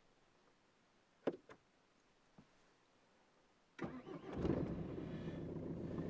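A few sharp clicks, then a little over halfway through a car engine starts and settles into steady idling.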